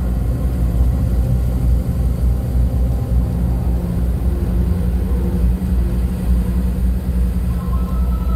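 Steady low rumble of a moving car heard from inside the cabin: road and engine noise.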